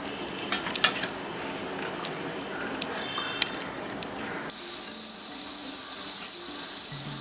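Steam escaping from the vent of a stainless-steel idiyappam steamer lid as a loud, steady, high-pitched whistle that starts abruptly about four and a half seconds in. The steam is up and the idiyappam is cooking. Before it come a few faint clinks as the lid is settled on the pot.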